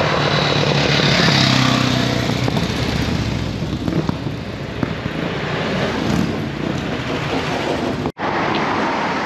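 Historic motorcycles riding past with their engines running, followed by a vintage open car. The engine sound is loudest a second or two in and softer after. It cuts out abruptly near the end.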